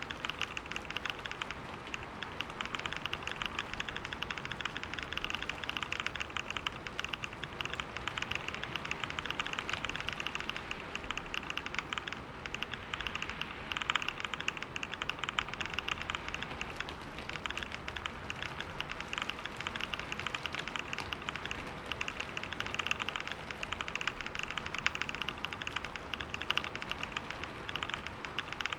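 Rapid, continuous typing on a computer keyboard at about 125 words per minute: a dense, unbroken patter of key clicks.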